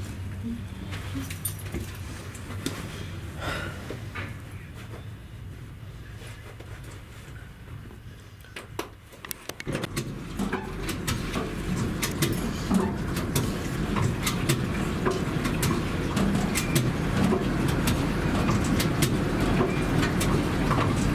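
Train running, heard from inside the carriage: a low rumble with scattered clicks and rattles from the wheels on the track. About nine and a half seconds in it turns suddenly much louder, with rapid clicking, and keeps getting louder.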